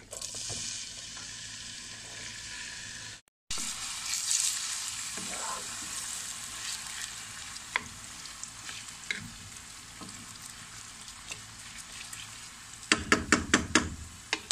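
Finely chopped onion frying in olive oil, a steady sizzle as it is stirred with a wooden spoon. The sound drops out briefly about three seconds in, and a quick run of sharp knocks comes near the end.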